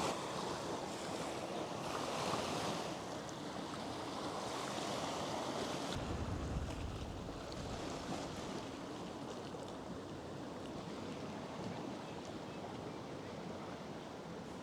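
Ocean waves washing against a rocky shore: a steady surf hiss that swells and eases. A low rumble comes in about six seconds in for a couple of seconds.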